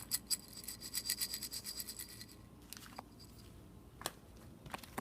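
A rapid run of sharp, high clicks or rattles, about five a second, that stops about two seconds in and is followed by a few scattered single clicks.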